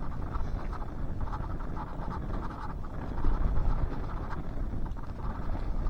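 Wind buffeting the microphone as a low, uneven rumble, with light scratchy rustling and scraping over it.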